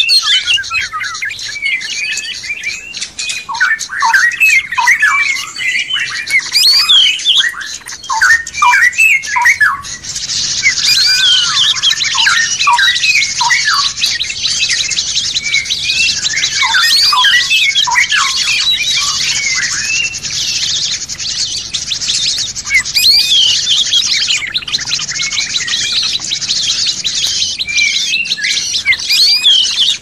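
Several songbirds singing and chirping at once, a dense overlapping run of quick whistled chirps and slurred notes. From about ten seconds in, a thicker layer of fast, high chattering joins and carries on underneath.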